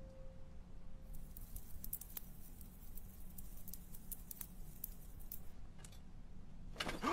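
Faint, scattered small clicks and ticks over a low steady hum, after a ringing tone that fades out in the first second. Just before the end comes a short, louder sound that falls in pitch.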